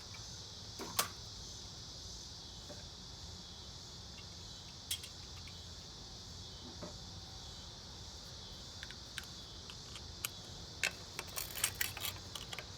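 A steady high-pitched insect chorus, like crickets, with scattered light clicks and taps of small parts being handled, most of them in a cluster near the end.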